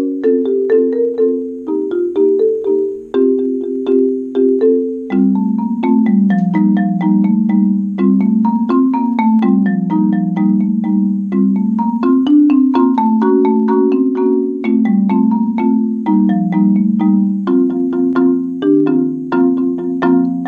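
Marimba played four-mallet style with Marimba One Wave Wrap #2 birch-handled mallets: a steady stream of struck, ringing wooden-bar notes in rolling chord patterns. About five seconds in, the lower notes move down to a deeper register.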